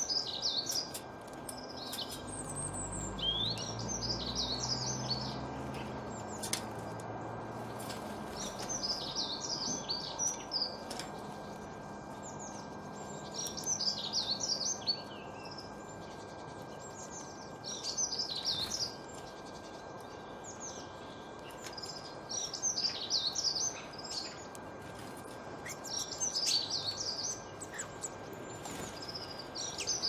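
A small songbird singing short, high warbling phrases, one every three or four seconds, over a steady outdoor hiss. A faint low rumble runs under the first few seconds.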